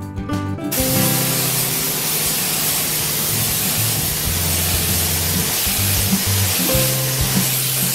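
A compressed-air spray gun on a hose hisses steadily over a small copper-and-brass radiator core, starting suddenly just under a second in. Plucked-guitar background music plays underneath.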